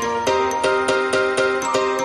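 Background music: a steady run of pitched, struck notes at about four beats a second.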